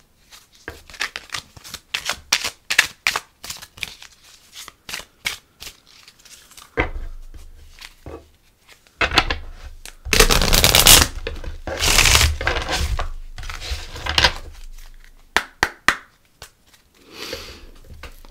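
A deck of oracle cards being shuffled by hand: quick runs of card clicks and flicks, with two louder stretches of riffling about ten and twelve seconds in.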